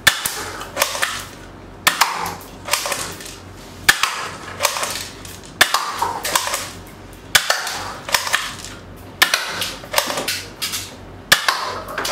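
Small plastic toy M4-style airsoft gun firing 6mm BBs, one shot at a time: seven sharp snaps about two seconds apart, each followed by a few lighter clicks and rattles.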